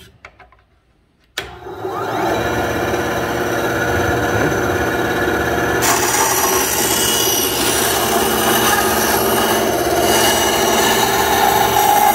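Central Machinery 9-inch benchtop band saw switched on about a second and a half in, its single-speed 1/3-horsepower motor spinning up within a second to a steady running hum. From about halfway through, the blade cuts into a wooden board, adding a rasping sawing sound over the hum.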